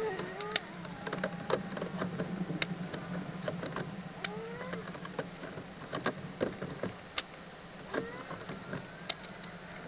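Car engine idling with a low steady hum, heard from inside the vehicle, with scattered sharp ticks and a faint short rising squeak about every four seconds.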